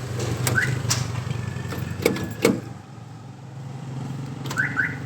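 Van power door lock actuators clicking several times as the locks are worked by remote, with a few short high chirps, over a steady low hum.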